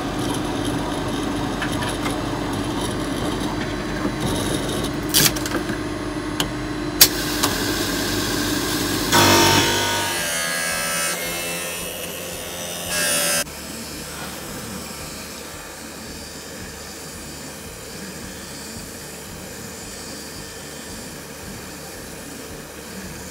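Essilor Kappa lens edger grinding a prescription lens to the frame's shape: a steady machine hum with a few sharp clicks. A louder stretch of grinding comes about nine seconds in and another near thirteen seconds, then the machine runs on more quietly.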